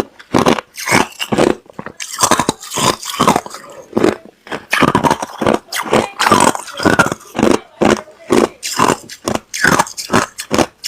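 Close-miked chewing of hard, clear crushed ice: a steady run of sharp crunches, about two to three a second.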